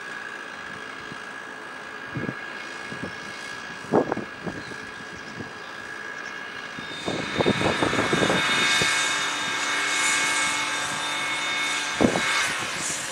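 A construction power tool working on brickwork: a steady whine that turns much louder and harsher about seven seconds in and stops near the end. Sharp knocks come about four seconds in and again just before it stops.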